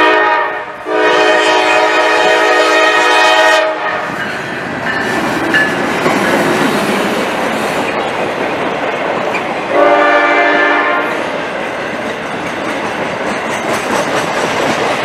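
Diesel locomotive air horn sounding a short blast, then a long one, the closing short-and-long of a grade-crossing signal. Then the steady rush and clickety-clack of the RoadRailer train passing close by, with one more horn blast about ten seconds in.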